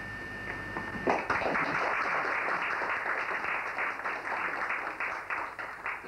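An audience applauding, with many hands clapping together. It starts abruptly about a second in and thins out near the end.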